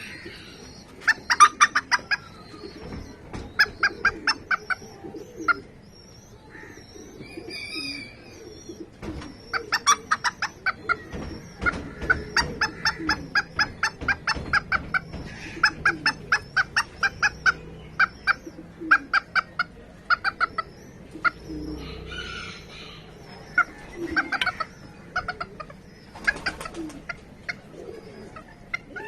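Serama bantam chickens clucking: repeated runs of short, quick calls, several a second, with brief pauses between runs.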